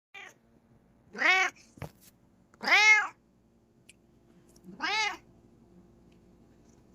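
Bengal cat meowing three times, each meow rising then falling in pitch, with a short click between the first two.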